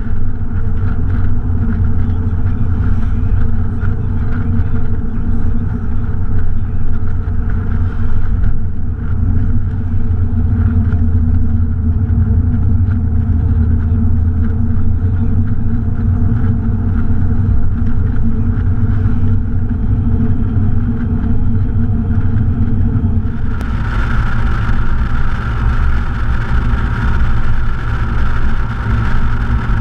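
Mercedes-Benz 280SL's straight-six engine running steadily while cruising in the open-top car, under a low rumble of wind and road noise. About 23 seconds in, the wind and road hiss suddenly grows louder and brighter.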